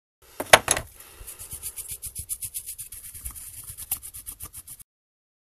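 A stiff brush scrubbing the blades of a laptop cooling fan in quick, even strokes, about eight a second. It opens with a couple of sharp knocks as the fan is handled.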